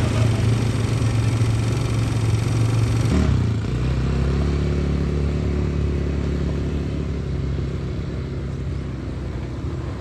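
Quad bike (ATV) engines running. About three seconds in, the sound changes abruptly to a steadier, lower engine hum that slowly gets quieter toward the end.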